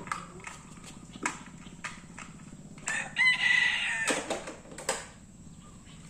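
A rooster crowing once, about three seconds in, one held call. A few light clicks of plastic toy trucks being handled can also be heard.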